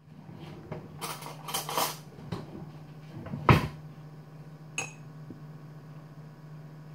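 Kitchen clatter of a metal spoon knocking and scraping against dishes: a few clinks and knocks, the loudest about three and a half seconds in and a short ringing one near five seconds. A steady low hum runs underneath.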